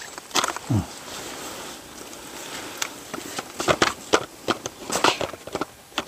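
Handling noise of hand tools worked against a tree trunk: scattered light clicks and taps, more of them in the second half, over a faint hiss, with no power tool running.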